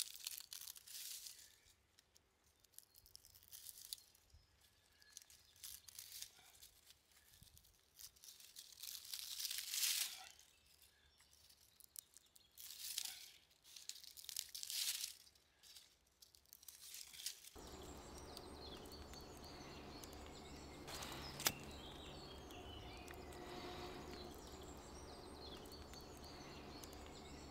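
Thin, dry beech bark being peeled and picked off a half-rotten branch: faint, irregular short crackly tearing sounds. About two-thirds through the sound changes to a steady faint background with a single sharp click of a lighter.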